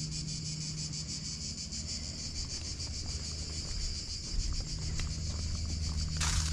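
Steady high-pitched insect chorus, a fast even trill without a break. A brief rush of noise comes near the end.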